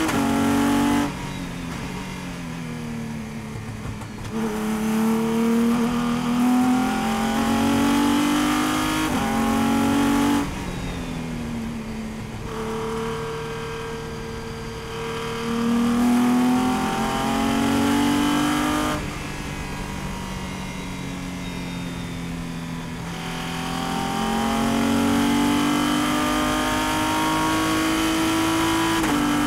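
Prototype race car's engine heard from inside the cockpit at racing speed. Three times the driver lifts off and the revs fall through downshifts, then the engine climbs again under full throttle through upshifts.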